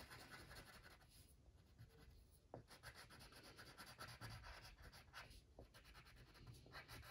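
Brown wax crayon scratching faintly on paper in many short strokes, with a few brief pauses, as it colours in a drawing.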